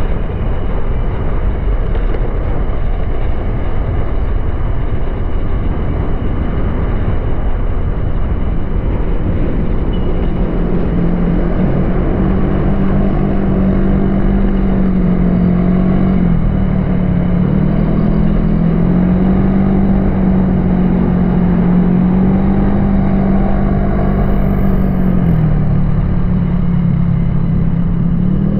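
Honda Click 125i scooter's single-cylinder engine running at a steady cruise, with heavy wind rumble on the action camera's microphone. From about ten seconds in the engine's hum holds a steady pitch, dipping briefly twice.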